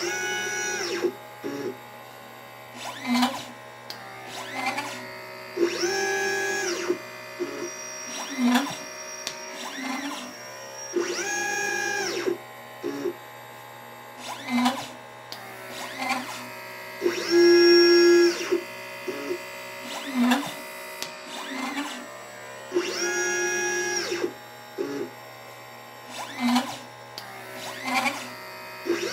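LitePlacer pick-and-place machine's stepper motors whining as the head travels, each move rising in pitch, holding about a second and falling, in a cycle that repeats every five to six seconds. Shorter, lower moves come in between, as the machine picks and places small capacitors and resistors. A steady low hum runs underneath.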